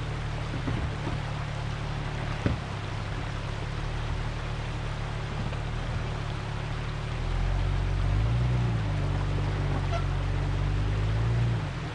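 Off-road truck engine running at a low, steady idle, then revving up about seven seconds in and holding higher revs as the rig crawls, dropping back near the end. A single sharp knock a couple of seconds in.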